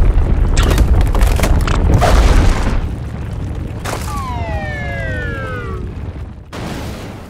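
Cartoon sound effects: a loud, low, rumbling boom with crashing knocks through the first few seconds, then a pitched tone sliding steadily down for about two seconds.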